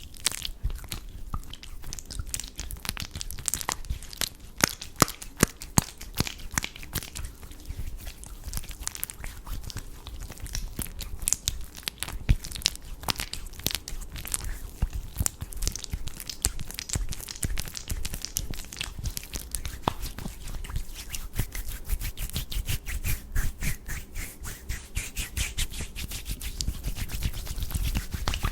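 Close-miked ASMR hand sounds: skin rubbing and fingers moving, a dense, unbroken run of soft crackles and clicks.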